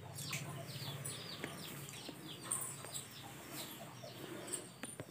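Small birds chirping: many quick, short, falling chirps, faint and repeated throughout.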